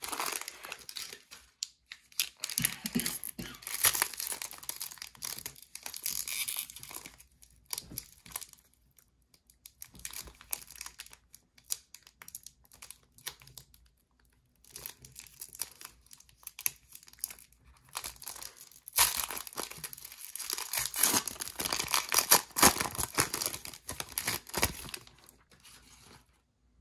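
Foil-plastic wrapper of a Donruss football trading-card pack crinkling and being torn open by hand, in uneven bursts of crackle with quieter pauses between them.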